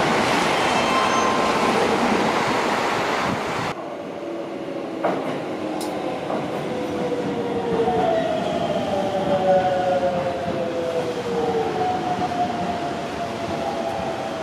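Keisei Skyliner (AE series) express passing through the station at speed: a loud, steady rush of wheels on rail and air. It cuts off suddenly a few seconds in, giving way to quieter platform noise with a click and a slowly falling whine.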